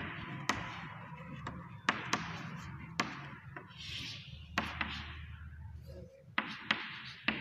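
Chalk writing on a chalkboard: irregular sharp taps as the chalk strikes the board, between short scratchy strokes.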